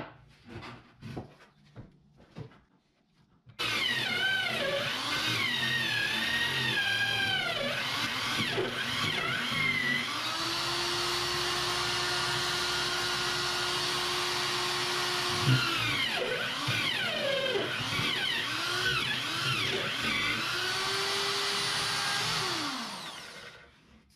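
Corded electric drill in a drill stand boring into plywood, starting a few seconds in after some knocks as the panel is positioned. The motor's pitch wavers up and down as the bit loads and frees in the wood, holds steadier for a few seconds at a time, then winds down and stops near the end.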